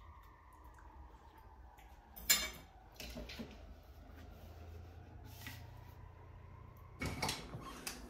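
Kitchenware clinking and knocking, like a mug and utensils being handled: one sharp clink about two seconds in, a few lighter knocks, then a short cluster of clatter near the end.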